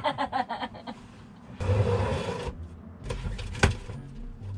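A cardboard shipping box being opened by hand: a rasping scrape of tape or cardboard lasting about a second, starting about one and a half seconds in, then a single sharp click.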